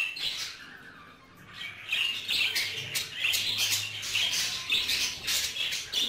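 Budgerigars chattering, a busy stream of short high chirps and squawks that thins out about a second in and picks up again from about two seconds in.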